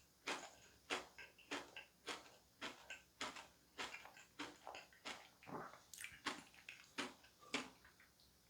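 Close-miked eating sounds of a person chewing cake: a steady run of soft clicks and smacks from the mouth, about two a second.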